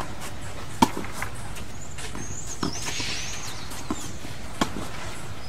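Tennis rally on a clay court: a handful of sharp pops from the ball being struck by rackets and bouncing, the loudest about a second in and another near the end.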